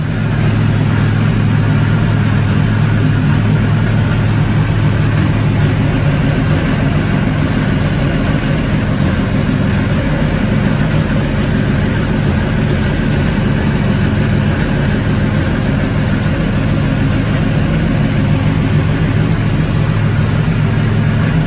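Ford 400-based 449-cubic-inch stroker V8, fed by a tunnel ram with two Holley Dominator four-barrel carburettors, running loudly and steadily on an engine dyno at a constant speed, without revving up or down.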